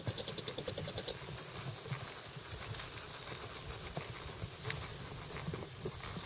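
Hoofbeats of a Tennessee Walking Horse mare gaiting under a rider, a continuous run of soft, uneven thuds on grass and gravel.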